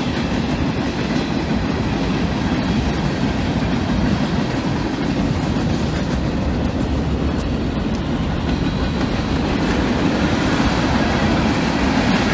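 Long mixed freight train of boxcars, gondolas and autoracks rolling past close by: a steady rumble of steel wheels on rail, growing slightly louder toward the end.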